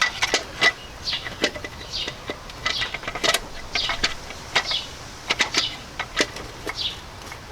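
Hard plastic distributor cap knocking, clicking and scraping against the distributor as it is turned to find the one position where it seats.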